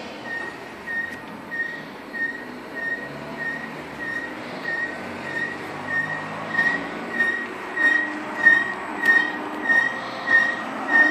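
A high squeak repeating evenly, about three every two seconds, growing louder over the last few seconds.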